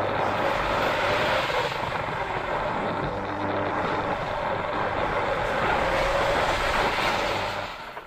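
Battery-electric motor and gearbox of a New Bright Mercedes-Benz SLR McLaren radio-controlled toy car running steadily as it drives over a wooden floor, cutting out briefly near the end. The owner thinks a drumming in it comes from the transmission rather than from the body rubbing.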